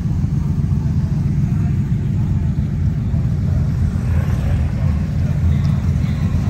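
Low, steady rumble of idling vehicle engines.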